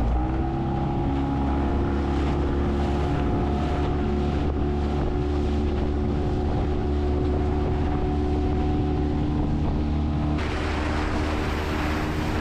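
Small tiller outboard motor on an aluminium dinghy running steadily under way, with wind on the microphone and water rushing past the hull. The rushing noise gets louder about ten seconds in.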